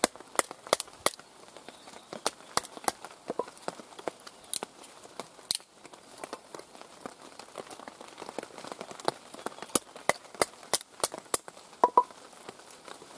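Wooden baton knocking on the spine of a Mora knife to split knotty kindling on a stump, with the wood cracking apart. The sound is irregular sharp knocks in short runs.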